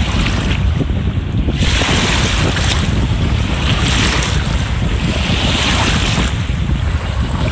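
Wind buffeting the microphone in a constant low rumble, over choppy lake water lapping and washing in at the shore. The wash swells into louder hissing surges from about a second and a half in, coming and going every second or two.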